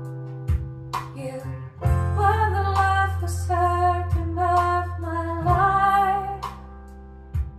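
A song with a female voice and acoustic guitar playing through a pair of RadioShack Optimus STS-1230 floor speakers with upgraded crossovers, picked up by a phone's microphone in the room. The singing comes in about two seconds in. The owner finds the voice a little shrill and blames the speakers.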